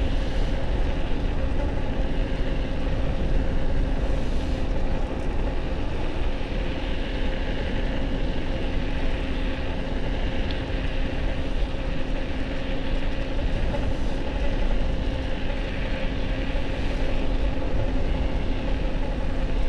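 Wind buffeting an action camera's microphone on an e-bike cruising at about 25 mph, a steady rumble with a faint even hum underneath.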